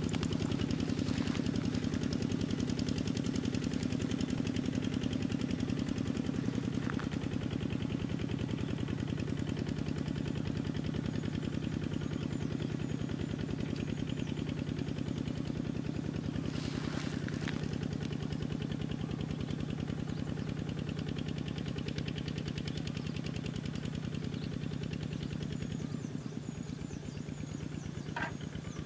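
A small engine running steadily with a fast, even chugging, its pitch shifting slightly a few seconds in.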